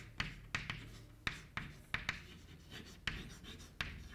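Chalk writing on a chalkboard: an irregular run of sharp taps, each trailing into a short scratchy stroke, as letters are written, about two to three strokes a second.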